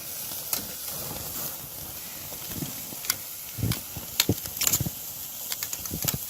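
Steak sizzling on a hot grill: a steady hiss with a cluster of sharp crackles around the middle, and a few soft knocks.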